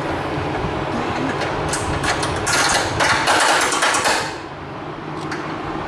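A mechanical rattling burst of about two seconds from a power tool, starting a little before halfway, after a few scattered knocks, over a steady low hum.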